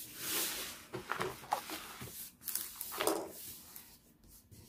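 A hand rubbing parchment paper laid over a diamond painting canvas, a few swishing strokes, pressing down a crease in the canvas to flatten it.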